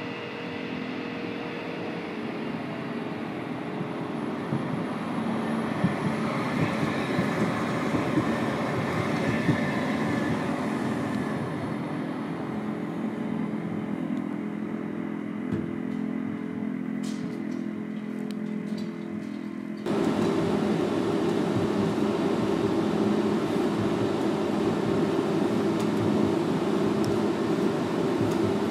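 CAF Urbos 100 tram approaching on street track: a steady hum with several low tones under rail and road noise, growing louder toward about nine seconds in and then easing off. About twenty seconds in it cuts to the sound inside the tram's passenger cabin while riding, a louder steady hum.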